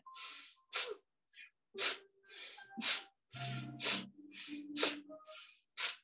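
Forceful nasal breathing of the breath-of-fire exercise: about six quick cycles at roughly one a second, each a softer inhale through the nose followed by a short, sharp exhale as the abdomen is pulled in.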